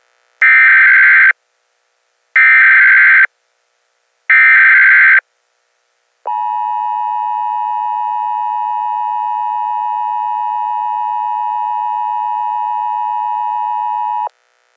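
Emergency Alert System alert opening: three short bursts of SAME header data, each about a second of rapid digital warbling, two seconds apart. About a second later the two-tone EAS attention signal comes in and holds steady for about eight seconds before cutting off.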